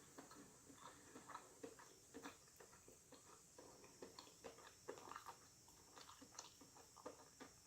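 Faint chewing and wet mouth sounds, with scattered small irregular clicks, of a person eating.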